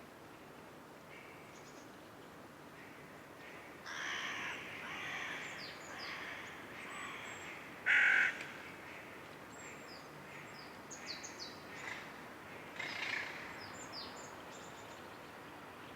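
Wild birds calling. A harsh, raspy run of calls comes about four seconds in, then one loud short call about eight seconds in, followed by several short high chirps from small birds.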